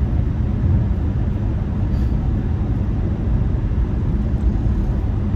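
Steady road and engine noise of a car driving at highway speed, heard from inside the cabin: an even low rumble with no changes.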